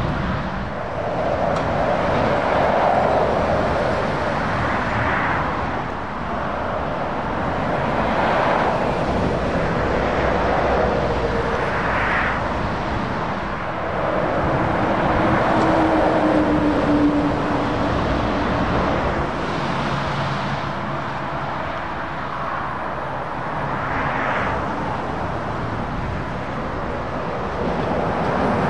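Motorway traffic: lorries and cars passing at speed, the tyre and engine noise swelling and fading as each vehicle goes by. About halfway through, a passing lorry's engine adds a low steady drone.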